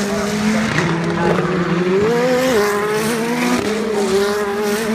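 Pro Mazda open-wheel race cars running hard through the corners, more than one engine heard at once, their notes rising and falling in pitch with a sharp drop about two and a half seconds in.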